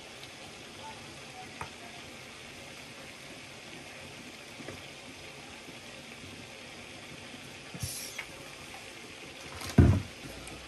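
Seasoned potato mixture being stirred: a steady faint hiss with a few light clicks, and one heavy low thump near the end.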